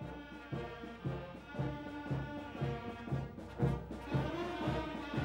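A Maltese festa street band of clarinets and brass playing a march, with a steady low beat about twice a second under the held melody.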